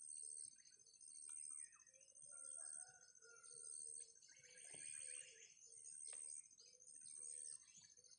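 Faint outdoor birds and insects: a high chirp repeats about once a second over a steady thin trill, with a few soft bird calls in between.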